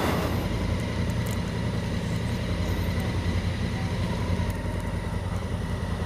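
Honda Africa Twin's parallel-twin engine idling steadily.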